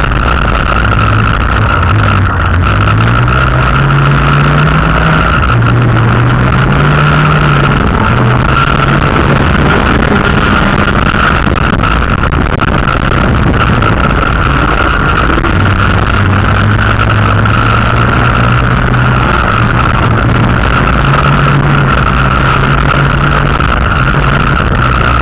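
Dirt-track race car's engine heard from inside the car, loud and continuous, its pitch climbing and dropping several times as the car accelerates and lifts off. A steady hiss runs underneath.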